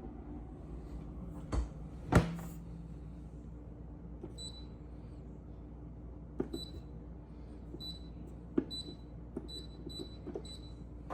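Two knocks, then a GE refrigerator's electronic control panel giving about seven short high beeps as its touch buttons are pressed, over a low steady hum. The beeps show the fridge has power and responds again after its burnt control board was replaced.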